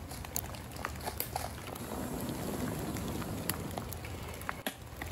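Dry-rot wood burning in a stump fire, crackling with scattered irregular pops over a low steady background.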